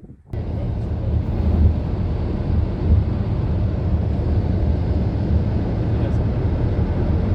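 Car interior noise while driving at speed: a steady low road and engine rumble with tyre hiss, starting suddenly at a cut a moment in.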